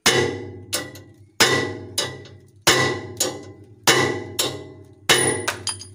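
Steel hammer blows with a metallic ring, about a dozen at a steady pace of roughly one every half second, heavier and lighter strikes alternating, with a quick run of lighter taps near the end. An old bearing is being hammered as a drift to drive a bushing onto the rotary tiller shaft of a VST Shakti 130 DI power tiller.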